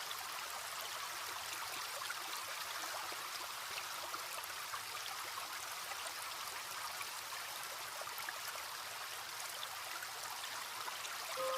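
A small stream trickling and babbling steadily, a continuous fine splashing of water.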